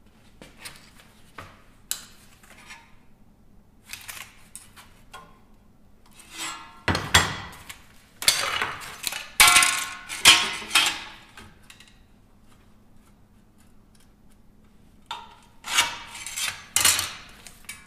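Cut pieces of steel plate clattering and scraping as they are picked up, shifted and set down on a steel workbench, in irregular spells that are busiest in the middle and near the end.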